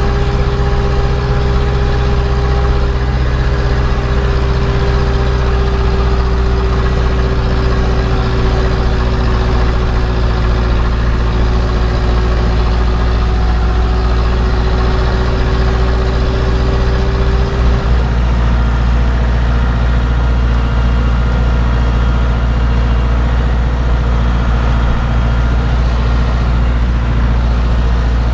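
Zetor 7011 tractor's four-cylinder diesel engine running steadily. A high whine sounds over it, drifts slightly lower and stops about two-thirds of the way through.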